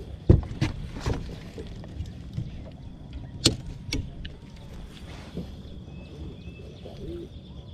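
Scattered knocks and clatter of handling in a small fishing boat, with rod and gear bumping the hull and deck while a caught peacock bass is held up. The loudest knock comes about three and a half seconds in, over a low steady rumble.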